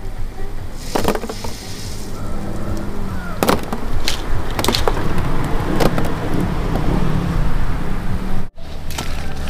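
A low steady rumble with several sharp knocks scattered through it.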